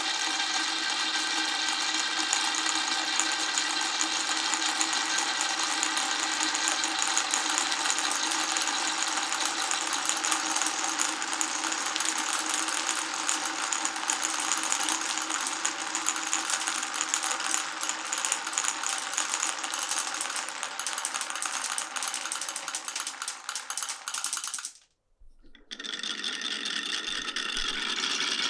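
Marbles rolling continuously down a marble run of wooden tracks and clear plastic pipes: a dense, steady rolling rattle with ringing tones. It stops for a moment about 25 seconds in, then starts again.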